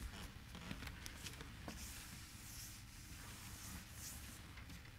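Faint scratching and light taps at a blackboard, over quiet room hum.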